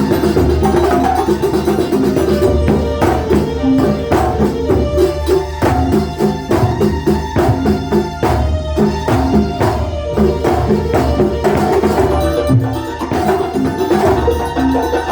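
Live kuntulan music from a Banyuwangi folk ensemble: hand-beaten frame drums and other drums played in a fast, dense rhythm under sustained melodic lines.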